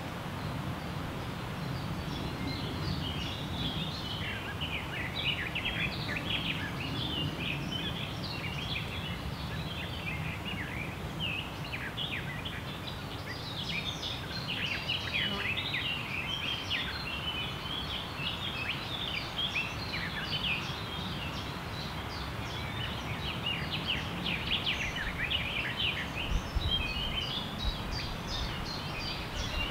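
Many small songbirds chirping and twittering in a dense chorus that begins about two seconds in, over a steady low rumble of background noise.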